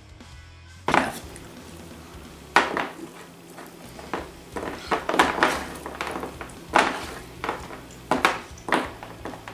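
Irregular clatter and rustle of handfuls of gummy fruit snacks being scooped off a tabletop and eaten, in several short, sharp bursts starting about a second in.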